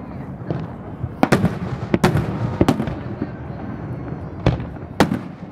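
Aerial fireworks shells bursting overhead: about six sharp bangs at irregular intervals, each trailing off in a short echo.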